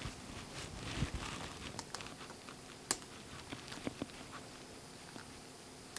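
Blue painter's tape being peeled off the edge of a cured epoxy tabletop, the thin epoxy film on it breaking away with faint crinkling and scattered small clicks, the sharpest about three seconds in.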